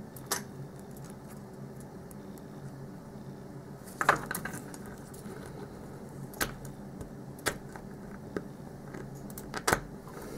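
Small metal clicks and scrapes of tools working the retaining clip off an American Lock 5200 padlock's core, with about five sharper metal clicks spread through.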